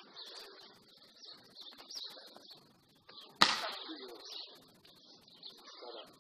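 A single sharp smack about three and a half seconds in, a hand striking a volleyball, over steady high chirping of birds.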